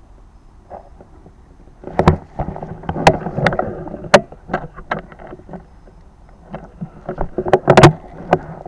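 Rustling with a run of sharp clicks and knocks from handling the air rifle and the phone camera on its scope, starting about two seconds in and loudest near the end.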